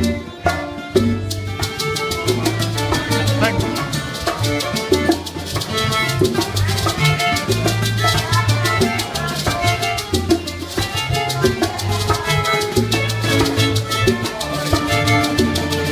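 A live Cuban band playing salsa-style music: a walking electric bass line, bongos and cymbal keeping a busy steady rhythm, with violin and other melody instruments on top.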